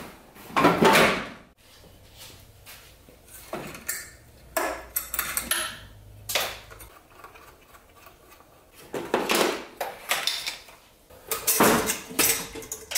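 Irregular knocks and clatter of car parts being handled and moved on a car's front end, in separate bursts, the loudest about a second in.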